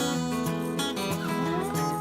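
Background music with guitar, in a country style.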